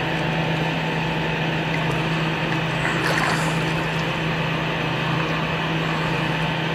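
Steady low hum and even noise of an indoor swimming pool's machinery and water, with a brief wash of water noise about three seconds in.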